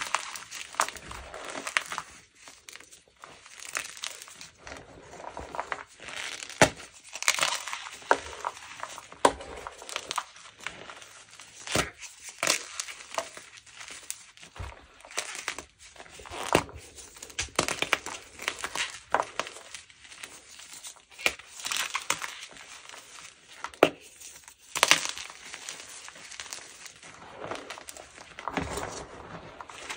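Gym chalk mixed with cornstarch being crushed and crumbled: irregular crunches and crackles, with quieter powdery crumbling in between.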